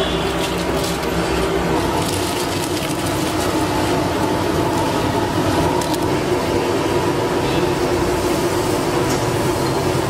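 Large pot of water with rice in it boiling hard: a steady rushing, bubbling noise.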